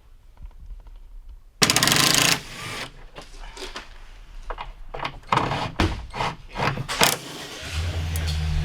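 Workshop tool noise: a short loud burst like a power tool about a second and a half in, then a run of sharp knocks and clicks. Near the end a vehicle engine starts a steady low idle.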